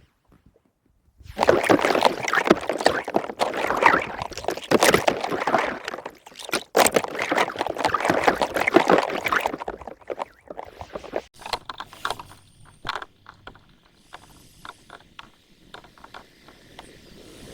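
Water splashing and gurgling for about eight seconds, then dying down into scattered drips and small clicks.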